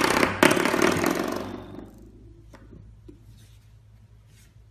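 Coiled-spring door stop flicked by a puppy's paw, twanging twice in quick succession with a buzzing ring that dies away over about a second and a half. A few faint light taps follow.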